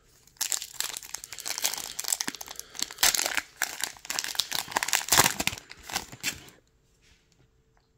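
Plastic trading-card booster pack wrapper being torn open and crinkled in the hands, a dense crackling for about six seconds.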